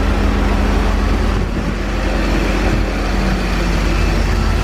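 1984 Corvette's 5.7-litre V8 idling steadily with its electric radiator cooling fan running.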